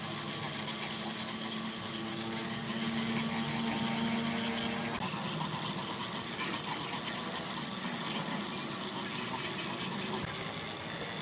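Hand-held rotary buffing tool with a small abrasive wheel, running steadily while it is pressed against a rubber patch cut from a tyre. It is roughening the rubber's surface, with a continuous whirring and scuffing.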